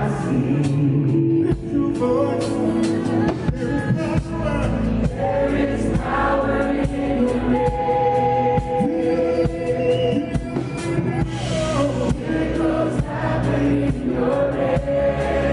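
Choir singing a worship song with a male lead singer at a microphone, including some long held notes.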